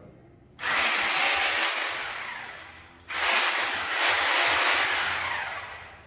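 Handheld electric angle grinder run twice in short bursts. Each burst starts suddenly as a loud rushing hiss and fades away over about two seconds.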